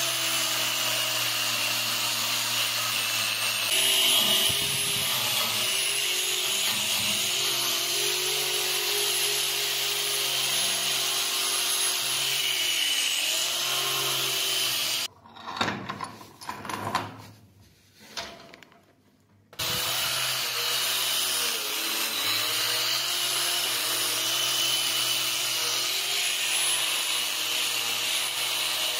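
Angle grinder with a wire cup brush running steadily against a steel scissor blade. Its motor whine dips in pitch each time the brush is pressed in. Just past the middle it cuts out for about four seconds, leaving a few knocks, then runs again.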